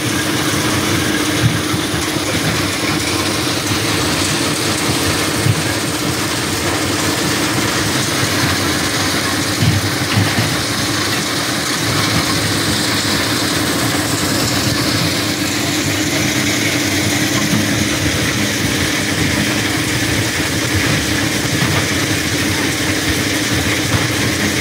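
Granite crushing plant machinery running steadily: a constant mechanical hum with a held tone, under irregular low knocking and clatter, with a few sharper knocks.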